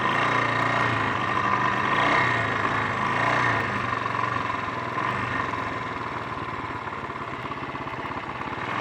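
Honda XL 350's single-cylinder four-stroke engine running, its pitch rising and falling with the throttle in the first few seconds, then settling lower and a little quieter.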